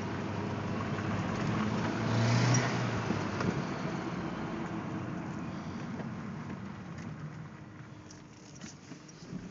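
Turbocharged 1.8T four-cylinder engine running, with a brief rise in revs about two seconds in before settling; the owner suspects an exhaust leak.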